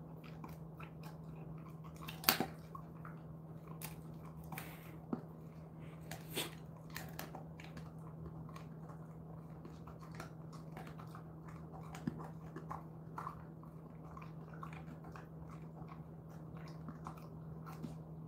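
Jindo dog chewing and crunching an elephant-fish treat, with irregular crunches that are loudest about two and six seconds in. A steady low hum runs underneath.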